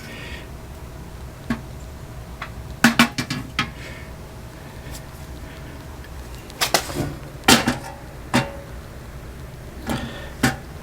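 Scattered metallic clinks and knocks of tools and washer parts being handled during the tub-support repair: a quick cluster of taps about three seconds in, then single sharp knocks a second or so apart later on.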